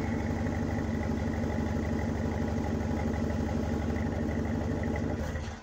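Cadillac Escalade ESV V8 idling steadily through a Flowmaster Super 44 muffler, heard at the exhaust tip. The sound falls away right at the end, as if the engine is switched off.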